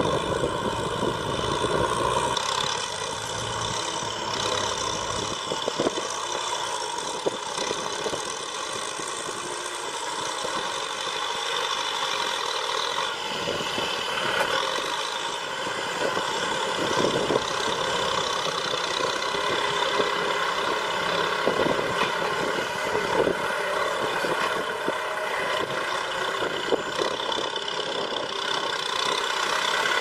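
Diesel farm tractors running steadily under load while pulling disc ploughs through the soil.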